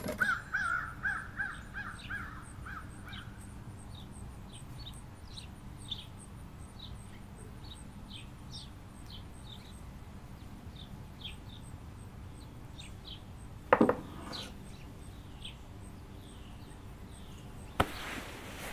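Birds chirping in the background, with a rapid chattering call in the first few seconds. A sharp click at the very start, and two more sharp knocks, one about fourteen seconds in and one near the end, the last followed by a rustle.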